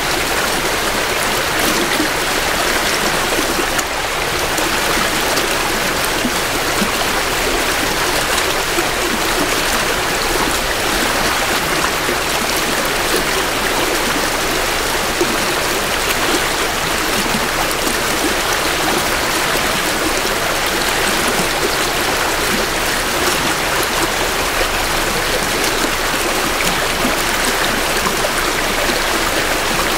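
Creek water flowing steadily over rocks, an even rushing with some trickling, heard close up from the bank.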